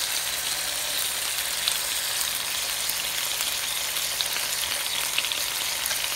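Beef steak sizzling as it fries in a hot pan: a steady hiss dotted with small crackles.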